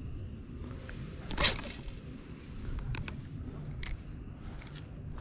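Line whizzing off a spinning reel as a light rod is cast, about a second and a half in, then a sharp click a little before the end. Wind rumbles low on the microphone throughout.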